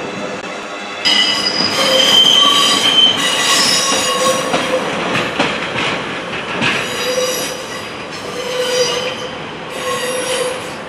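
Train wheels squealing on curved track as a diesel multiple unit approaches, the squeal coming in high, whistling bursts over the rumble of the train: a long one starting suddenly about a second in, then shorter ones near the end.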